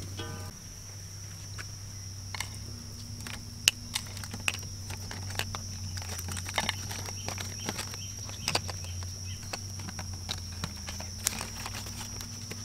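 Outdoor ambience: a steady high insect drone with a low hum underneath, and scattered sharp clicks and small knocks at irregular moments.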